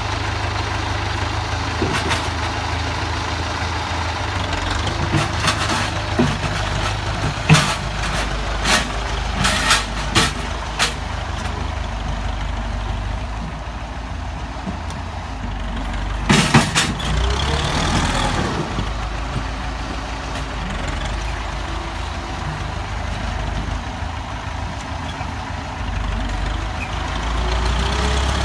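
Tractor's diesel engine running steadily, with a series of sharp metallic clanks about a fifth of the way in and another short cluster a little past the middle.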